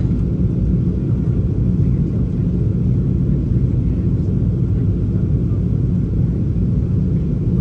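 Steady low rumble of airflow and engines inside the cabin of a Boeing 737-800 in flight.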